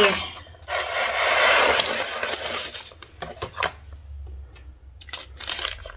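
Small metal charms clinking and jingling as they slide off a card into a clear plastic bag, for about two seconds, followed by a few light clicks.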